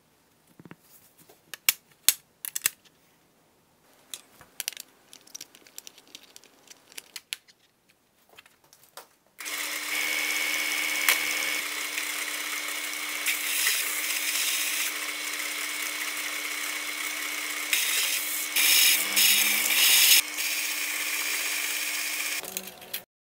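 Aluminium U-channels clinking and knocking as they are handled, then a bench belt sander starts about nine seconds in and runs with a steady motor hum under a loud hiss. It grinds the end of an aluminium channel to bring the pieces to equal length, turning harsher twice as the metal is pressed to the belt, and stops shortly before the end.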